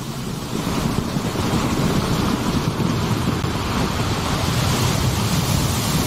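Ocean surf washing onto a beach: a steady rush of breaking waves.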